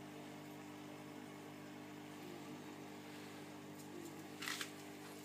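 Aquarium filter motor humming steadily, with one brief scratchy crackle near the end.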